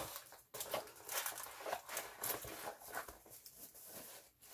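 Diamond painting canvas being rolled up by hand, its surface rustling and crinkling in irregular strokes.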